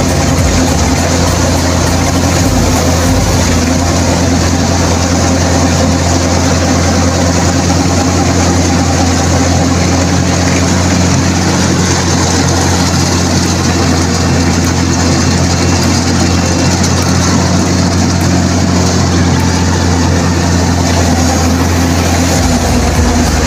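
Rice combine harvester running steadily while it cuts ripe rice: a loud, even engine hum with the machine's working noise over it.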